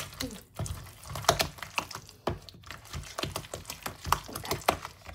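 Wooden spoon beating thick, sticky minced-fish and coconut-cream paste in a plastic tub, making rapid, irregular clicks and knocks about three times a second. The paste is being stirred in one direction to make it firm and sticky.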